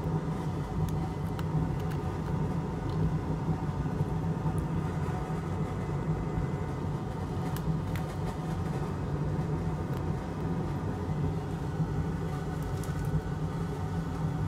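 Steady fan and motor hum of a bench fume extractor, unchanging throughout, with a few faint light clicks as a charging flex cable is handled and plugged into a tester.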